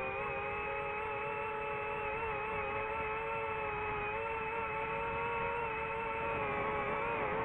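DJI FPV drone's motors and propellers giving a steady whine of several tones that waver together slightly as the throttle changes.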